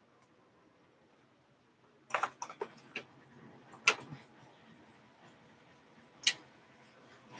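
Sharp clicks and knocks of objects being handled on a workbench: a quick run of four or so about two seconds in, then a louder single click near four seconds and another past six seconds, over faint room tone.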